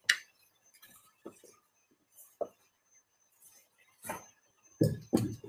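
A few separate light clicks and knocks from handling things on a desk, with two heavier thumps near the end.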